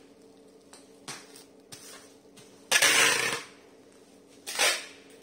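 Black plastic packing wrap rustling and crinkling as it is handled and smoothed around a rolled package, with small rustles early on and two louder bursts, a longer one about three seconds in and a short one near the end.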